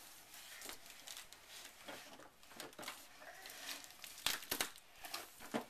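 Cardboard shipping box being opened by hand: crinkling and tearing of cardboard and packing, with a few sharp knocks near the end.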